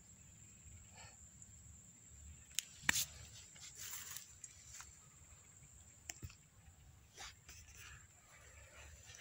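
Faint scattered rustling and a few sharp clicks, the loudest pair about three seconds in, over a steady high-pitched whine.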